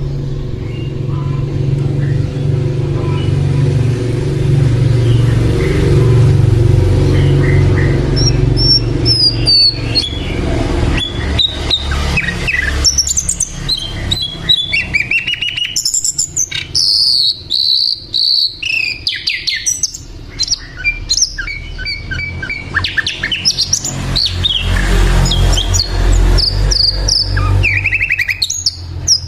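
Sikatan londo flycatcher singing hard: quick high chirps and short trilled phrases, many in rapid succession, starting about a third of the way in. A steady low hum sits under the first third and fades out.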